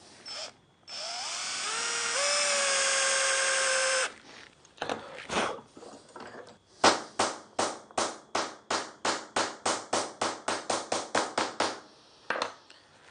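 Cordless drill driver driving a Phillips head screw into the end of a scrap of timber, its motor whine rising in pitch, then holding steady for a couple of seconds before stopping. After a few knocks comes a quick run of about twenty light hammer taps, about four a second, as the screw-head punch is struck into a timber board to texture it.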